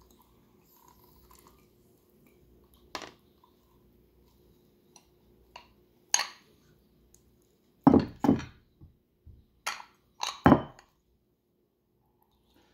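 Hinged hand-held citrus squeezer clicking and knocking against a ceramic bowl while lemon and orange halves are squeezed and swapped. A few light clicks come first, then a cluster of sharp knocks from about eight to ten and a half seconds in.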